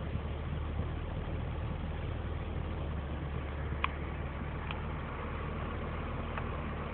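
Chevrolet Omega's 3.0-litre straight-six idling steadily, heard from inside the cabin as a low even drone, with a few short clicks of dashboard switches near the middle.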